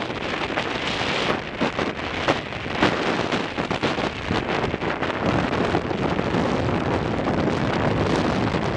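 Strong gusty wind buffeting the microphone, with wind-driven waves washing on the lake.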